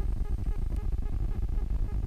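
Wind buffeting the camera microphone: a low, gusty rumble that rises and falls irregularly.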